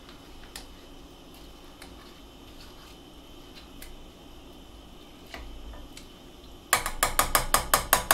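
A spoon stirring in a small stainless saucepan, with faint scattered clicks. Near the end comes a rapid run of about ten sharp, ringing taps, the spoon knocked against the pan's rim.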